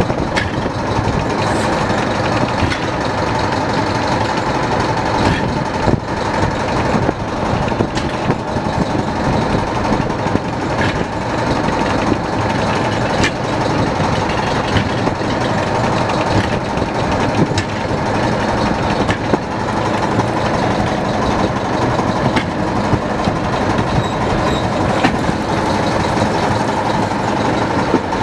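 Fishing boat's engine running steadily with a constant hum, with occasional knocks and clatter while the net is hauled aboard.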